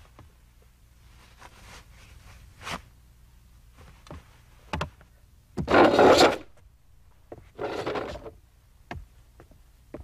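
A wooden-and-metal school chair scraping on the floor as it is pushed back: one loud scrape about six seconds in and a shorter one near eight seconds, with scattered small knocks and clicks of desk and lunch things around them.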